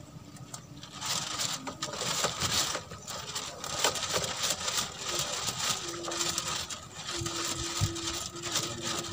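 Rapid, irregular clicking and rattling from fishing tackle being handled at a reel, with a faint steady hum underneath.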